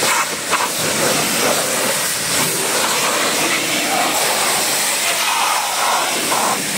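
High-pressure water jet from a car-wash pressure washer wand spraying a car's bodywork and glass: a loud, steady hiss.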